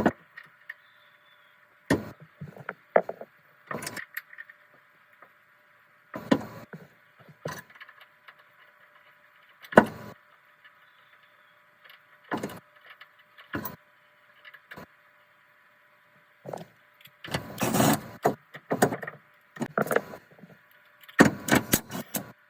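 Intermittent knocks, clanks and short rattling bursts of tools and parts being worked on a car, about a dozen separate events with a longer rattling spell past the middle and another near the end, over a steady faint hum.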